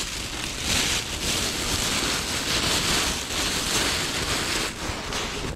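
Plastic bags rustling as they are handled, in uneven swells of noise.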